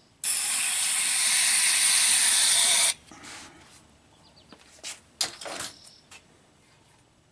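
Aerosol spray lubricant hissing out of a can in one steady burst of about two and a half seconds, worked into a seat track to free up its crudded-up ball bearings. A few light clicks and taps follow.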